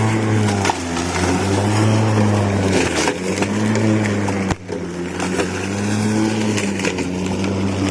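Lawn mower engine running steadily while mowing, its pitch sagging and recovering every second or two as it takes up and sheds load in the grass. About four and a half seconds in the level briefly dips with a sharp tick.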